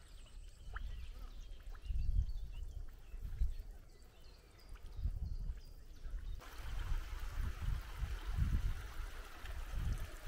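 Shallow, iron-rich mineral-spring water trickling over mud and grass, with faint scattered ticks. About six seconds in, a steadier babble of running water sets in. Low dull thumps throughout are the loudest sounds.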